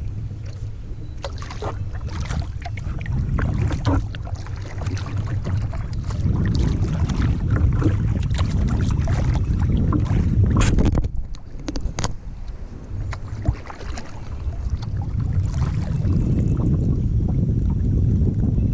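Wind buffeting the microphone on a kayak, a rough low rumble that eases briefly about two-thirds of the way through, with many short sharp splashes and knocks of water and paddle against the kayak scattered over it.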